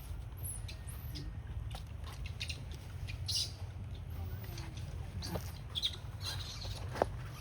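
Many short, high-pitched animal squeaks and chirps, with a few sharp clicks, over a steady low rumble.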